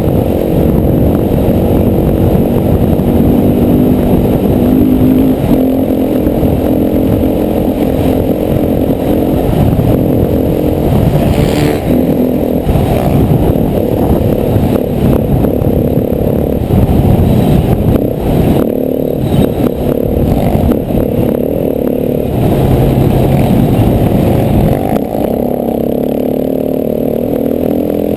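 KTM 450 dirt bike's four-stroke single-cylinder engine running under changing throttle, its pitch rising and falling, with a few sharp knocks and clatter from the bike over rough ground.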